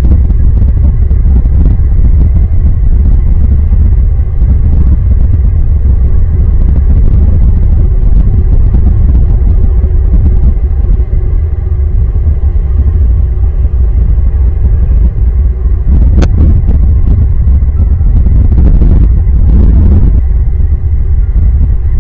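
Wind buffeting a nest camera's microphone, a loud steady low rumble, with a sharp click about 16 seconds in.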